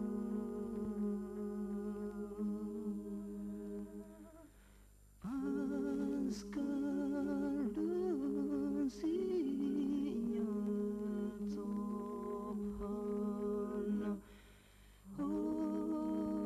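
Slow wordless vocal music: voices humming a mournful melody over a held low note. The music drops out briefly twice.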